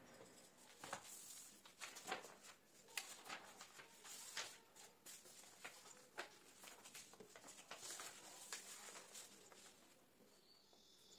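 Faint rustling and crinkling of printed paper sheets being picked up and handled, an irregular run of quick rustles and taps that thins out near the end.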